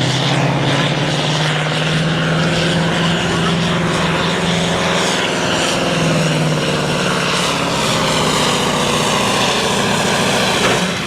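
Super sport class pulling truck's turbo diesel engine running hard under full load, a loud steady drone as it drags the sled down the track.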